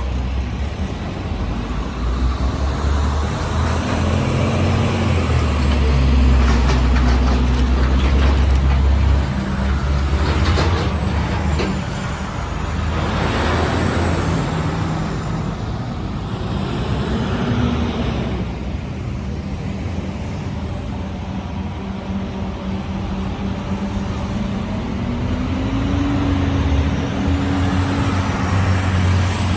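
Road traffic with heavy vehicles such as trucks or buses running close by: a steady low engine rumble that swells about six to nine seconds in and again near the end.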